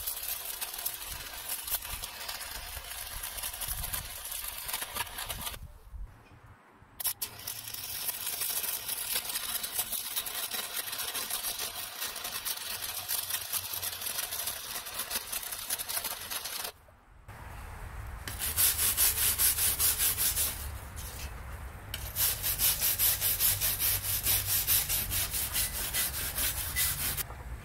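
Stick (SMAW) welding arc crackling steadily on steel plate. It stops for about a second near six seconds in, then runs on until about seventeen seconds. After that a hand steel wire brush scrubs the fresh weld in quick back-and-forth strokes, cleaning slag off the bead.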